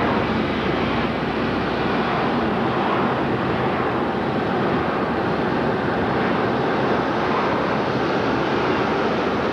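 Steady road and wind noise inside a moving car's cabin, an even rushing hiss with no breaks.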